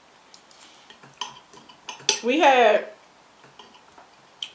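Knife and fork clicking and scraping against a plate while cutting food, in scattered light taps. About two seconds in there is a short voiced sound, like a hum, and it is the loudest thing heard.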